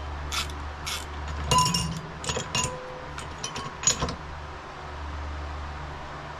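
Small metal parts clinking and tapping as clutch springs are fitted into the motorcycle's clutch, with a cluster of clinks and short metallic rings about midway. A steady low hum runs underneath.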